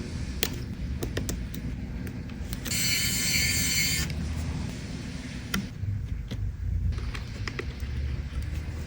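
A small electric motor whines for about a second and a half, with scattered clicks and taps over a steady low hum.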